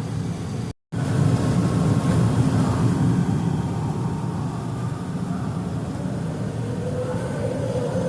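Steady rumble of a transit vehicle in motion, heard from on board. It cuts out completely for a split second about a second in. Faint steady tones come up near the end.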